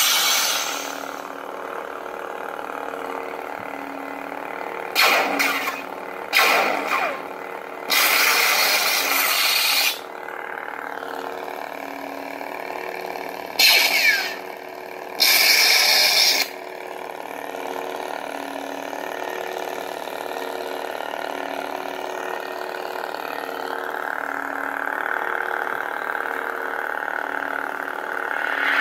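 Lightsaber replica's Plecter Labs Crystal Focus V9 sound board playing lightsaber sound effects through its small speaker: an ignition at the start, then a steady, pulsing hum broken by five short, louder effects between about five and seventeen seconds in, and a swell near the end as it is switched off.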